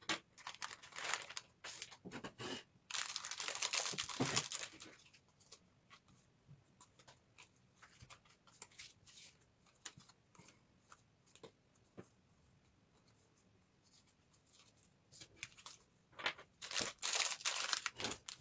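Thin plastic packaging bag crinkling and rustling in the hands in two spells, a long one near the start and a shorter one near the end, with scattered light clicks and taps of small plastic game pieces in between.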